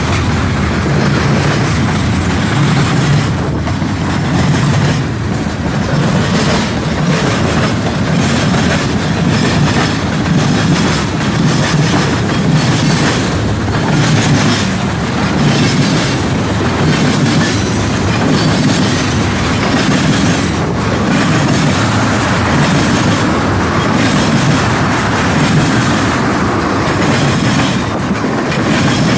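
Train rolling steadily past, its cars' steel wheels clacking over the rail joints and switch as it crosses over from one main track to the other.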